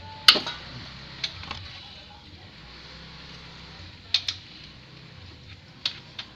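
A handful of short, sharp clicks and knocks, like tools or small metal parts being handled and set down, over a low steady background. The loudest comes about a quarter second in, with pairs of lighter clicks a second later, around the middle, and near the end.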